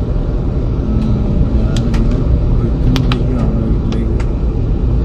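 Steady low road and engine rumble inside a moving car's cabin, driving at reduced speed on a wet road. A few sharp clicks come between about two and four seconds in.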